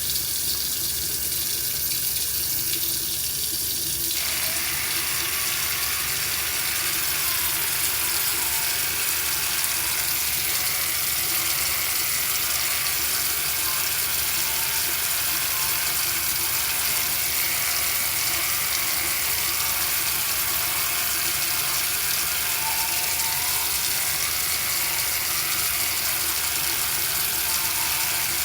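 Oral-B Smart 5000 electric toothbrush running: a steady mechanical motor buzz that carries on unbroken, its sound shifting slightly about four seconds in.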